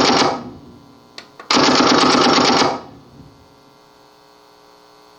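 A telephone-bell ring sound effect played from a voice-effects mixer: the end of one ring, then after a short gap and a couple of small clicks, a second ring of about a second. Afterwards only a faint steady electrical hum remains.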